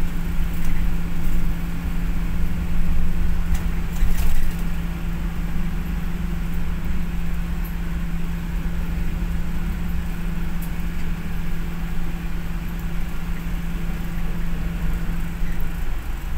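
Steady cabin noise inside a moving passenger vehicle: a low drone with a constant hum, and a few light rattling clicks about four seconds in.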